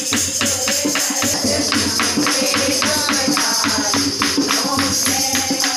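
Devotional kirtan music: women singing an aarti hymn over a steady beat of about four strokes a second from hand claps and a dholak drum, with continuous jingling percussion.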